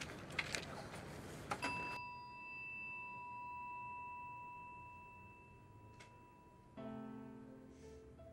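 A Buddhist altar bell bowl (rin) struck once, giving a single clear ringing tone that fades away over about five seconds, after a few light clicks. Soft instrumental music comes in near the end.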